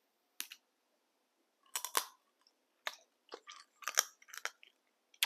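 Close-up chewing and crunching on crab or lobster: a scatter of short, sharp crunches and cracks with quiet gaps between them.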